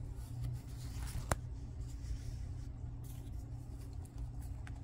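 Light rustling and handling of a cellophane gift bag and craft items, with one sharp click about a second in, over a low steady hum.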